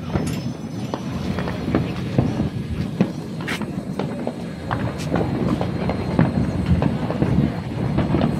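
Fireworks going off all over a city at once: a continuous rumble of overlapping distant bangs and pops, with a sharper crack standing out every second or so.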